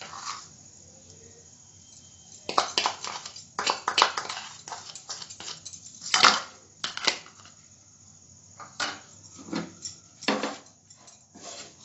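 Short clinks and scrapes of a kitchen utensil against a spice container and a non-stick pan as garam masala powder is sprinkled over cooked rice, coming in irregular clusters with the loudest clink about six seconds in.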